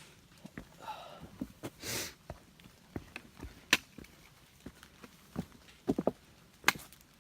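Hiker's footsteps on rocky trail: irregular scuffs and knocks with occasional sharp clicks on stone, the loudest about four seconds in and near the end.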